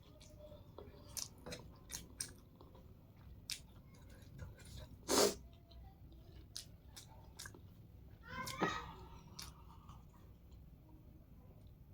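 Close-miked chewing and mouth sounds of someone eating spicy hakka noodles, with scattered soft wet clicks and one louder burst about five seconds in.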